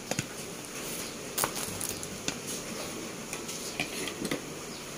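A few light, scattered clicks and rustles from a foil-wrapped grilled fish parcel being handled and set down on a ceramic plate, over a steady low background hiss.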